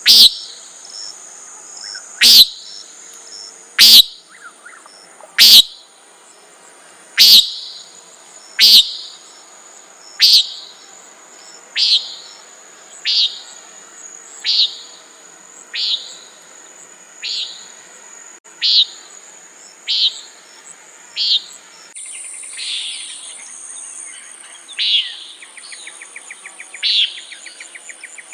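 Common nighthawk giving its short buzzy "peent" call over and over, about one call every second and a half, loud at first and fainter after about ten seconds, with a steady high drone of insects behind it.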